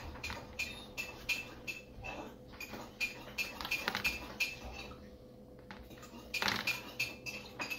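Kitchen utensils clinking: a run of quick, light taps with a faint metallic ring, several a second, pausing briefly past the middle and then starting again.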